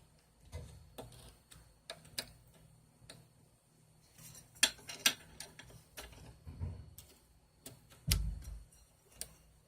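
Irregular small metallic clicks and taps from a Craftsman hand ratchet's parts and a pin tool as its retaining pin is worked back into place, with a heavier knock about eight seconds in.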